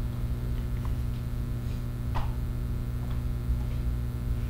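A few faint, scattered clicks, the clearest a little past two seconds in, from a laptop being clicked to change from a slide to a worksheet file, over a steady electrical mains hum.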